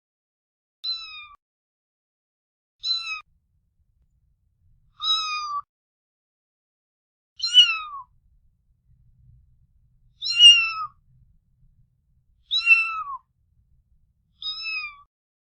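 A cat meowing: seven short, high-pitched meows about two seconds apart, several of them falling in pitch at the end.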